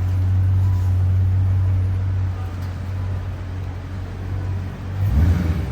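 Jeep Grand Cherokee SRT's 6.4-litre HEMI V8 idling, a steady low rumble, with a brief rise in pitch about five seconds in.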